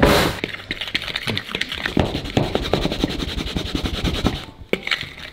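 A fork whisking seasoned dry flour in a plastic mixing bowl, ticking rapidly against the bowl at roughly ten strokes a second, stopping a little after four seconds in.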